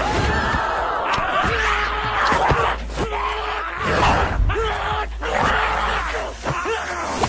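Fight-scene soundtrack: a ringside crowd shouting and yelling while fighters grunt and cry out, with sharp blows landing several times.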